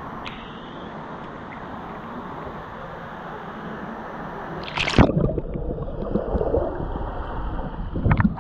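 Kayak capsizing in a swimming pool during an Eskimo roll: a splash about five seconds in, then gurgling, sloshing water, with another splash near the end.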